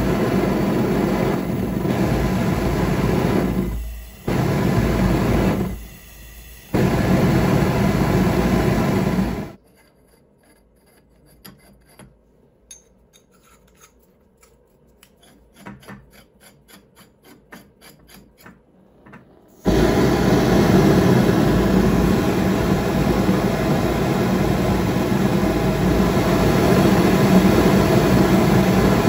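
Homemade Frosty T propane forge burner running with a steady rushing jet noise, dropping away twice for about a second. Then about ten seconds of quiet with small clicks and scrapes of threaded steel pipe fittings being handled, before the burner runs again with the same steady rush.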